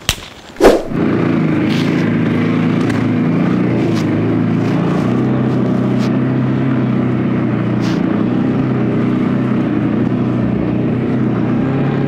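A loud hand clap just under a second in, then a CFMOTO CFORCE 600 ATV's single-cylinder engine running at a steady speed under way, with a few faint knocks.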